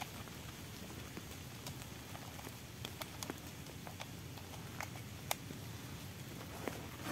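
Scattered light clicks and taps of a Saiga-410 shotgun being handled at the receiver and magazine, a few short ticks spread over several seconds, over a faint steady background hiss.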